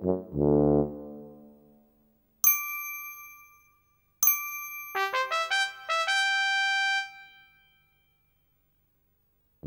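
A note of the background tune fades out. Then two bright single chime dings a couple of seconds apart, the second followed by a quick run of chime notes whose last note rings on and fades to silence.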